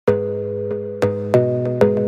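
Background music: sustained pitched notes, each struck anew every third to half second or so.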